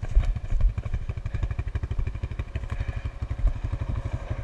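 ATV engine running at low revs, its exhaust pulses coming steady and rapid.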